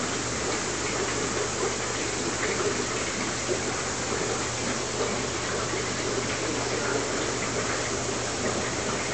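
Aquarium filtration running: a steady rush of splashing water over a constant low hum.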